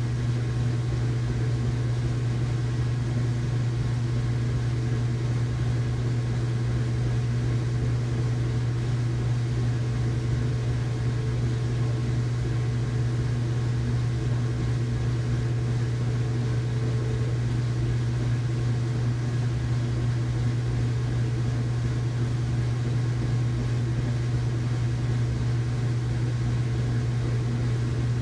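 Household washing machine running in its rinse cycle: a steady, even motor hum with a strong low drone and no knocks or breaks.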